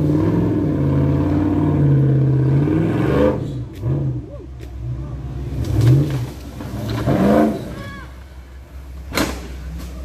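Off-road 4x4 trials vehicle's engine revving hard under load as it climbs a steep bank. After about three seconds it drops into shorter revs that rise and fall, and there is a single sharp knock near the end.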